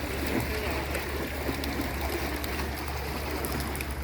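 Steady rush of sea water, with a low steady hum underneath.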